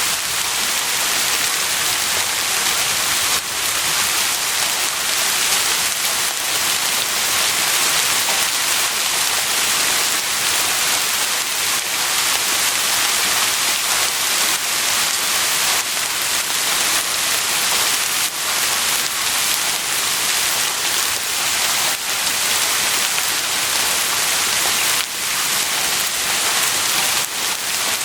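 Heavy rain falling steadily, a dense even hiss of drops with fine pattering on a surface.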